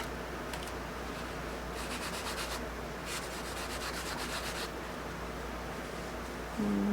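Charcoal scratching across paper in quick, short strokes: two runs of rapid strokes, the second about a second and a half long, as grass is hatched in.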